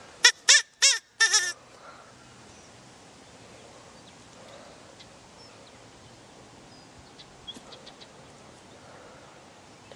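Rabbit calling: four short, wavering, high-pitched cries in quick succession in the first second and a half, then only faint hiss with a few soft ticks.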